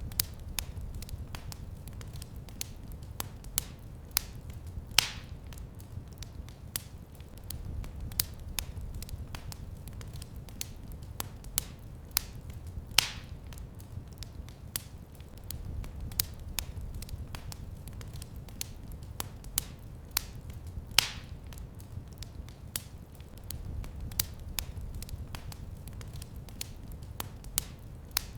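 Wood fire crackling in a fireplace: a steady low rumble of burning with many small sharp crackles and a louder pop about every eight seconds.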